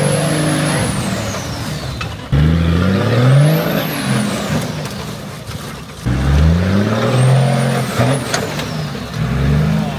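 Four-wheel-drive engine revving hard in repeated surges while climbing a rough off-road track, the revs rising sharply several times. A thin high whistle rises and falls with some of the surges.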